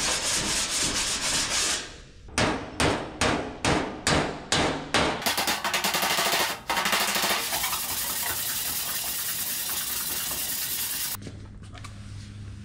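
Abrasive sanding on the steel cabinet of an early-1950s General Electric refrigerator, with 80-grit paper. A few seconds in there is a run of about seven rhythmic strokes, a little over two a second, then steady sanding that stops near the end, leaving a low hum.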